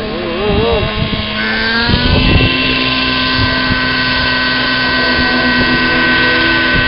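Radio-controlled 3D aerobatic model helicopter running: a steady whine of several tones from its rotor and drive that rises in pitch about one and a half seconds in, then holds steady.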